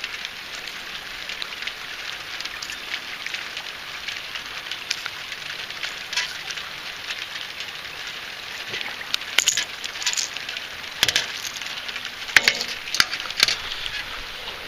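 Steady hiss of rain falling, with scattered sharp clicks and clinks that come more often in the second half.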